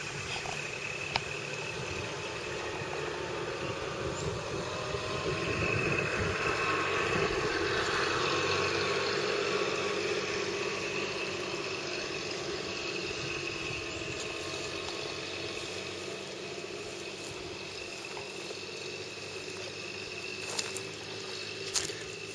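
A distant engine running, swelling to its loudest about eight seconds in and slowly fading away, with a couple of faint clicks near the end.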